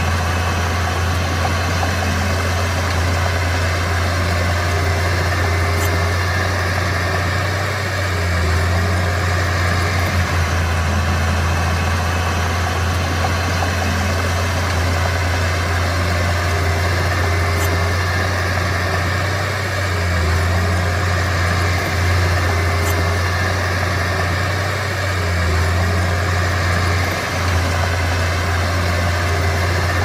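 Diesel engine of a Komatsu D31P crawler bulldozer running steadily, a low even drone that dips briefly a few times.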